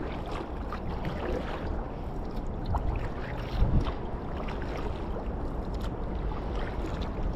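Kayak paddling: the double-bladed paddle dipping and pulling through calm water, with drips and small splashes off the blades and a few soft knocks.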